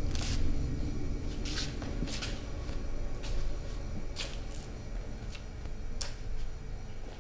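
Irregular small clicks and rustles, about one every half second to a second, over a low steady rumble.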